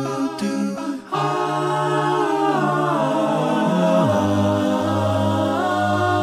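Background music: a cappella voices singing sustained chords in harmony, with a low bass part that drops to a deeper note about two-thirds of the way through.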